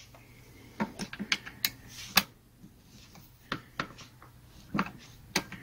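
Irregular light clicks and taps from a hand tool working a chainsaw's ignition-coil mounting bolts, which are being tightened down to set the air gap between the coil and the flywheel magnet.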